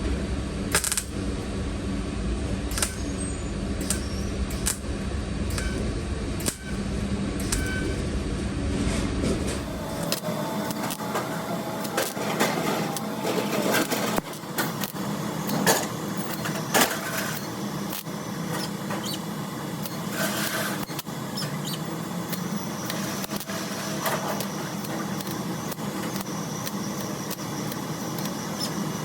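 Welder tacking up holes in a car's steel quarter panel: short, irregular crackling arcs over steady shop noise.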